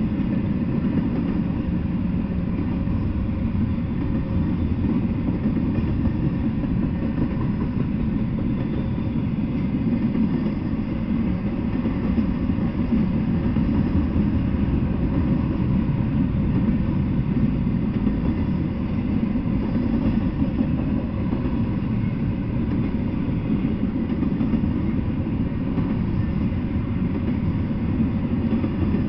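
Double-stack intermodal freight train rolling past at a steady speed: a continuous low rumble that holds even throughout.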